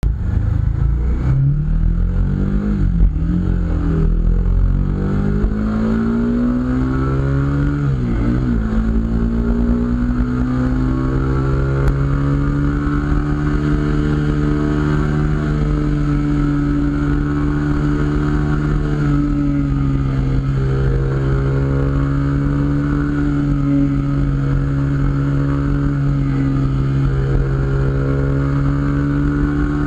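Onboard sound of a Kawasaki Ninja 250SL's single-cylinder engine through an aftermarket Akrapovic exhaust with its silencer insert fitted, with wind rushing over the microphone. The engine pitch climbs, drops briefly about 3 seconds in and again about 8 seconds in as it shifts up, then holds at a fairly steady cruise.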